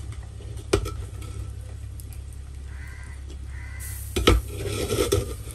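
Knocks and clatter of boiled chicken pieces being handled in a perforated aluminium strainer as they are set to drain: one sharp knock a little under a second in, a louder knock after about four seconds followed by about a second of clattering. A steady low hum runs underneath.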